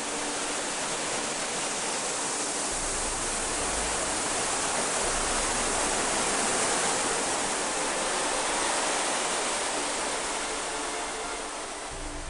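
Saut du Doubs waterfall on the Doubs river: a steady, dense rush of heavy white water pouring over the falls. It swells to its loudest midway and eases slightly near the end.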